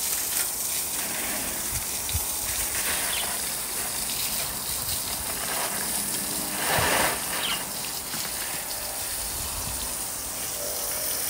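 Water gushing steadily from a garden hose and splashing onto the ground, briefly louder about seven seconds in.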